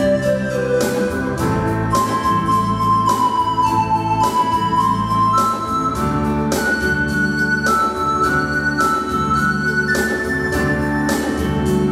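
Electronic arranger keyboard played live: a melody of held notes moving step by step over chords and bass, with a steady beat of sharp strokes.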